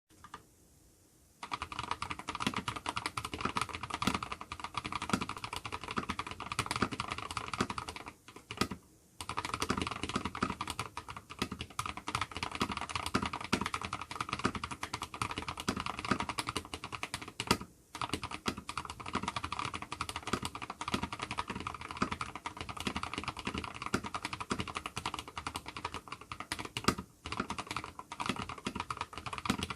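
Mechanical keyboard with lubed Holy Panda tactile switches and SA-profile keycaps being typed on fast and continuously, a dense stream of clacking keystrokes broken by a few brief pauses.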